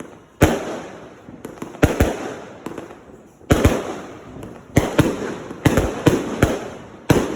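A 200-gram consumer firework cake firing, its shots bursting in sharp bangs, often two in quick succession, about a dozen in all. Each bang trails off in a fading crackle.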